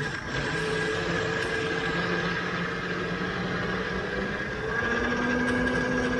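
A steady engine hum over a noisy background, with another steady tone joining about five seconds in.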